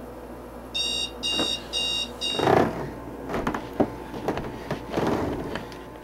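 Digital alarm clock beeping four times in quick succession, high and piercing. It is followed by the noise of someone stirring in bed, with a louder rustle and several clicks and knocks.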